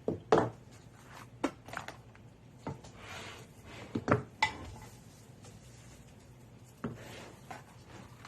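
Irregular hard knocks and clinks of leatherworking tools on a rock slab, with brief scraping in between; the loudest knocks come about half a second and four seconds in.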